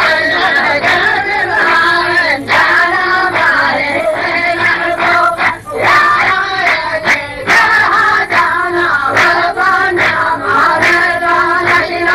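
A chorus of voices chanting a line of poetry in unison, sung in phrases with brief breaks between them, typical of the rows repeating the poet's verse in a muhawara poetry duel.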